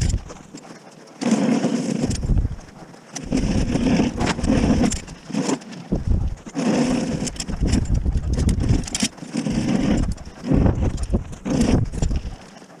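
Heavy, gasping breaths through a face mask, right at the chest-mounted microphone, coming in repeated swells every second or two from the exertion of pushing. Under them, the metal blade of a wheeled snow pusher scrapes over hardened, packed snow on concrete.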